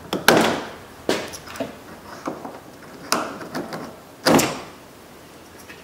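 Plastic push-in retaining clips being pried and pulled out of a car's lower grille and bumper cover with a small screwdriver: a series of about six sharp plastic clicks and scrapes, the loudest a little past four seconds in.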